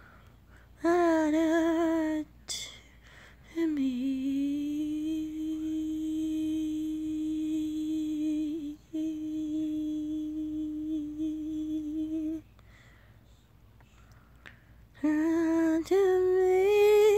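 A woman humming a tune without words in long held notes with a light vibrato: a short phrase, then one long note held for about eight seconds with a brief break, then a rising phrase near the end.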